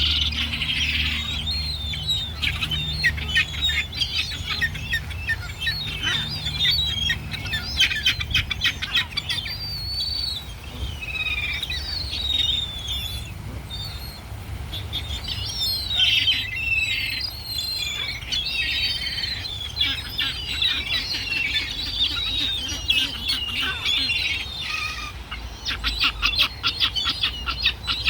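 A flock of wild birds chirping and twittering continuously, with many overlapping calls and rapid chattering trills, over a steady low rumble.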